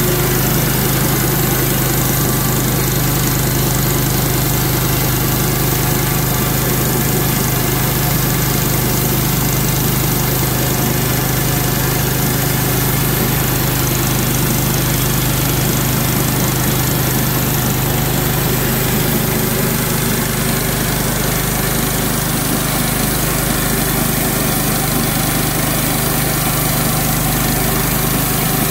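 Engine of a Clarke model 50 portable bandsaw mill running steadily under load while its band blade saws through a white pine log.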